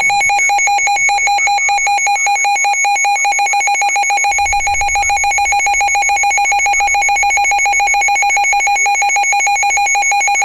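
Weather radio receiver's alert alarm: a loud electronic beep pulsing rapidly and evenly at one steady pitch. It signals an incoming severe thunderstorm warning.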